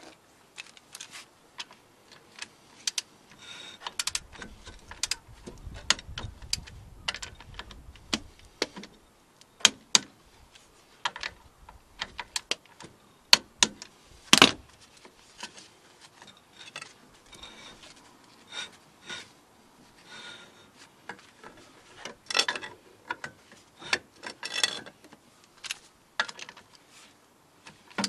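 Irregular sharp metallic clicks and clinks of a wrench and bar working on the steel hub as the flange bolts are tightened.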